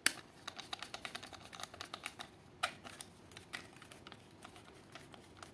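Screwdriver turning down the neutral terminal screw of a 13 amp wall socket: a run of small, irregular clicks and ticks, with a sharper click right at the start and another about two and a half seconds in.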